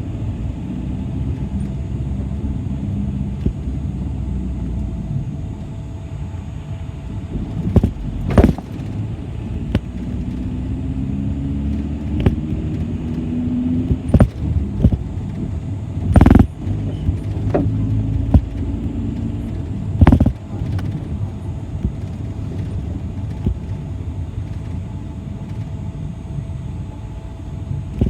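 City bus heard from inside while it drives: steady engine and road rumble, the engine's pitch rising as the bus speeds up partway through. Three loud knocks and several smaller rattles sound over it, the loudest about two thirds of the way through.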